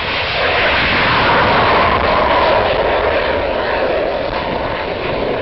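F-16 Fighting Falcon jet fighter taking off, its turbofan engine loud and continuous. A tone within the roar falls in pitch as the jet passes; it is loudest about two seconds in, then eases slightly.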